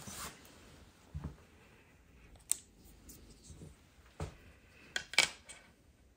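Scattered clicks and light knocks of small drawer-assembly parts being handled and set down, with the sharpest click about five seconds in.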